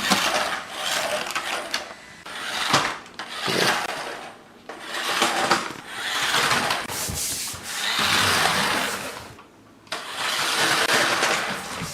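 Toy radio-control truck's small electric motor and plastic gearbox whirring in repeated bursts of one to two seconds each, stopping and starting as it is driven.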